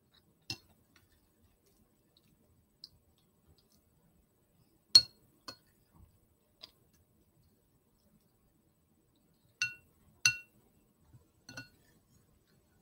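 Dishware clinking: about eight sharp, separate clinks spaced irregularly, several with a brief ring. The loudest comes about five seconds in, and a close pair follows around ten seconds.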